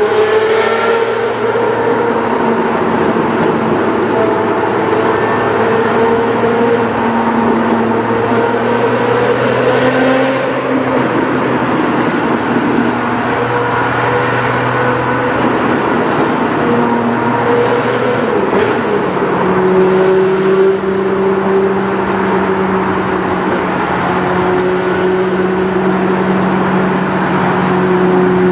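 Lamborghini Murciélago V12 with an aftermarket exhaust, heard from inside the car, accelerating. The engine note climbs and drops back at several upshifts, then settles to a steady note at cruising speed for the last several seconds.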